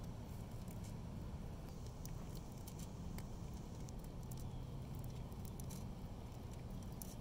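Sulcata tortoise walking on a concrete sidewalk, its clawed feet scraping and tapping the concrete in irregular clicks, over a steady low hum.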